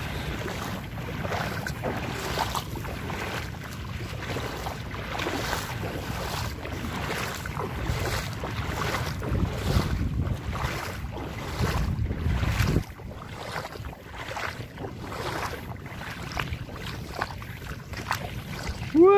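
Steady footsteps wading through shallow floodwater, each stride a splash, about two a second. Wind rumbles on the microphone until it cuts off about two-thirds of the way through.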